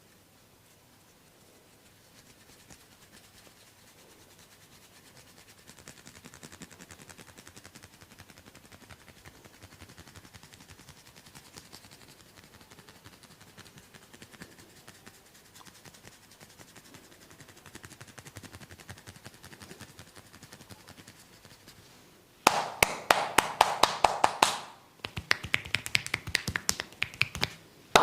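Rapid percussive massage strokes tapping on the body, several a second, in two loud runs beginning about 22 seconds in, after a long stretch of faint, quick tapping or rubbing.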